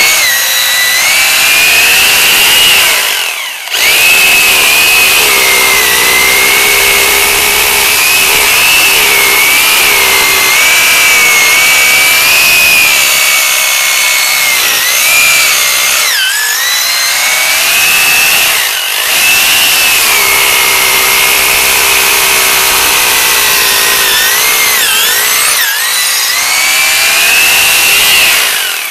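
Power drill boring into a concrete wall footing, its motor whine wavering in pitch under load. The drill stops briefly about three and a half seconds in, and twice more around the middle.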